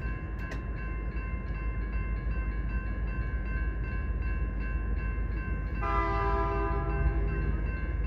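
Moving passenger train with a steady rumble, constant tones and a regular ticking. About six seconds in, a chorded locomotive whistle blows once for about a second and a half.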